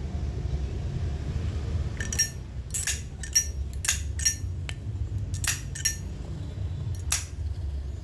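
Zippo Armor lighter's thick-walled case clicking: about a dozen sharp metallic clicks with a bright ring as the lid is flipped open and snapped shut, starting about two seconds in and ending near the seven-second mark. A steady low rumble runs underneath.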